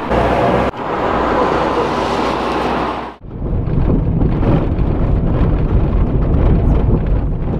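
A car driving along a road, heard from inside: a steady, loud low rumble of engine and tyres that begins suddenly about three seconds in. Before it comes a few seconds of even rushing noise.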